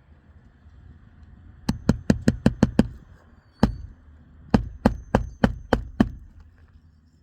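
Hand hammer striking in quick runs: seven fast blows, a single blow, then six more evenly spaced ones.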